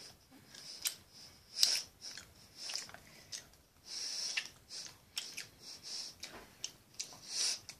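Children chewing jelly beans close to the microphone: irregular wet mouth clicks and short hissy breaths through the nose.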